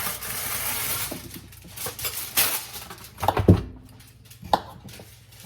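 Aluminium foil being pulled off the roll with a steady rustle for about a second, then crinkled in short crackles, with a loud knock on the counter about three and a half seconds in and a click soon after.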